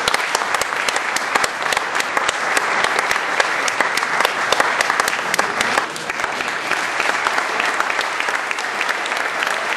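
Audience applauding, many hands clapping densely at once.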